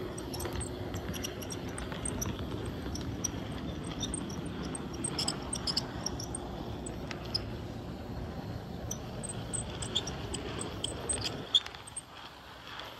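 HO-scale model train rolling along its track, heard from a car in the train: a steady rumble of wheels and motor with many small, irregular clicks and ticks from the wheels on the rails. The rumble drops away near the end.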